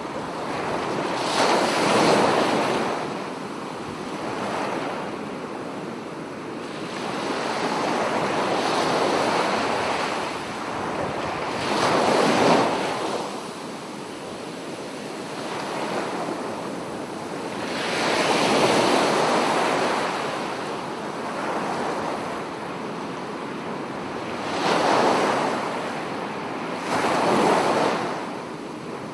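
Ocean waves breaking and washing on a shore, swelling into a louder surge every few seconds, with some wind on the microphone.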